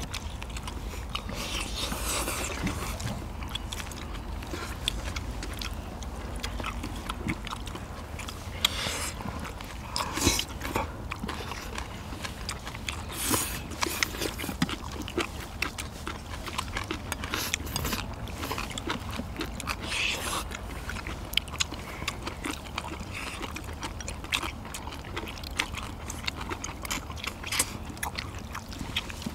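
Several people eating spicy braised seafood and bean sprouts: chewing, slurping and smacking, with scattered sharp clicks of metal chopsticks against bowls and the metal tray.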